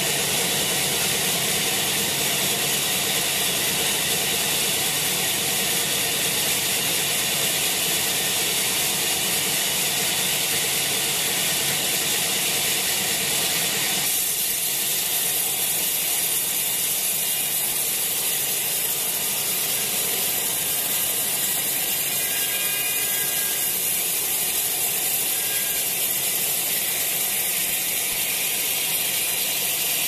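Log band sawmill running and ripping a wet teak log lengthwise into boards: a loud, steady, rattling whine of the band blade and machinery. Its tone shifts abruptly about halfway through.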